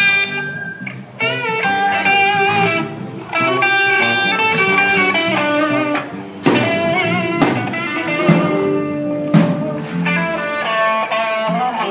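A live band playing during a sound check, with electric guitar to the fore over bass and drums in a bluesy rock style.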